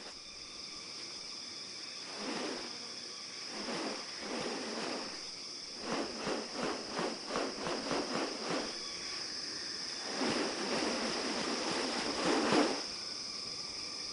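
Rainforest insect chorus: a steady high buzz. Louder rustling bursts come over it: a few short ones early on, a run of about eight quick pulses, roughly three a second, in the middle, and a longer burst near the end.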